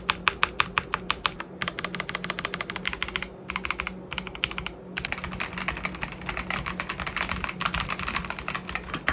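Typing sound test on a MelGeek Mojo 68 gasket-mounted mechanical keyboard with sound-dampening foam: rapid runs of keystroke clacks with brief pauses, getting faster and denser about halfway through.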